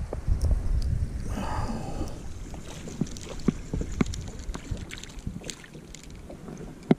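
Wind rumbling on the microphone over water slapping against a small boat's hull, easing after about five seconds. Scattered light clicks and taps come from handling the fishing rod and line while a hooked perch is brought in, with one sharper click near the end.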